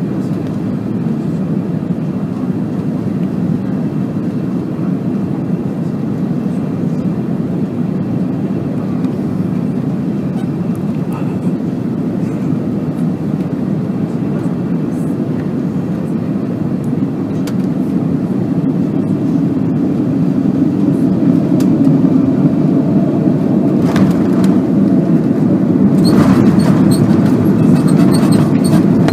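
Cabin noise of an Airbus A330-200 landing: steady engine and airflow noise that grows louder in the last third, with a sharp thud about 24 seconds in as the wheels touch down. Then comes a louder rumble with rattling clicks as the ground spoilers deploy and the airliner rolls out on the runway.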